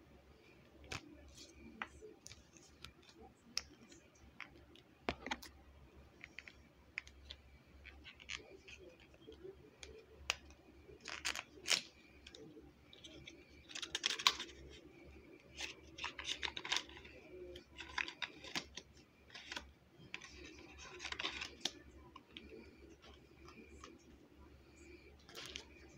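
Hands handling a small cardboard tarot card box and setting things on a table: scattered light taps and clicks with short rustling scrapes at uneven intervals, a few of them louder.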